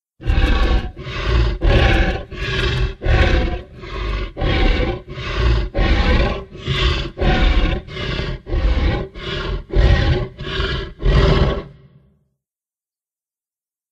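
Made-up Anchiceratops dinosaur call sound effect: a long run of short, deep, roar-like calls, about two a second, that stops about twelve seconds in.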